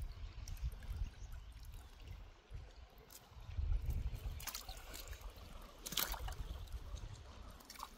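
Lake water trickling and splashing, with two short, sharper splashes about four and a half and six seconds in, over a low, uneven rumble.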